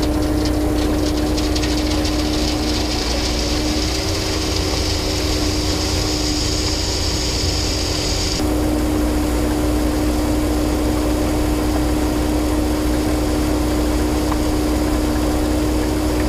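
Volumetric concrete mixer truck running steadily as it discharges concrete down its chute, a constant machine drone with a steady hum. A high hiss rides over it for the first half and cuts off suddenly about eight seconds in.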